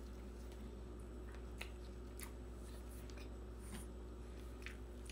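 Faint scattered clicks and rustles of a plastic-gloved hand picking apart air-fried tilapia and shrimp on a plate, over a steady low hum.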